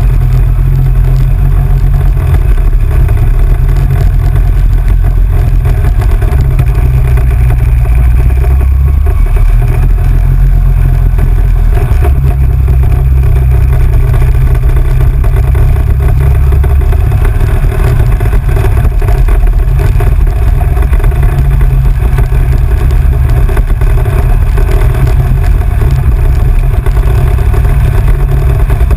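Off-road vehicle engine running steadily at speed on a dirt road, heard as a loud, constant low rumble mixed with wind on the microphone.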